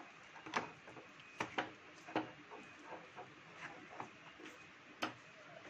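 Metal spoon stirring a thick wheat-flour batter in a stainless steel bowl: soft scraping with several sharp clinks as the spoon strikes the bowl's side.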